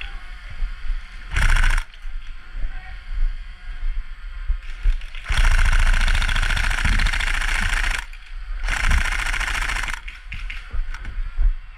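Airsoft electric guns firing on full auto: the rapid whirring rattle of the gearbox and shots, in three bursts, a short one about a second in, a long one of nearly three seconds midway, and a shorter one near the end, with handling knocks between.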